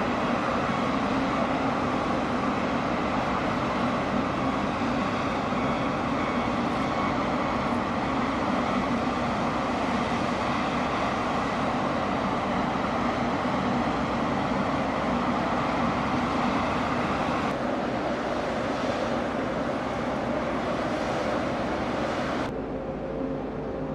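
Steady drone of heavy diesel machinery running, a low hum under a broad hiss. About a second and a half before the end it drops in level and turns duller.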